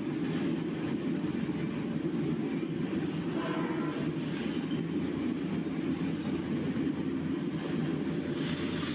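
Steady low rumble of running machinery, unchanging in level.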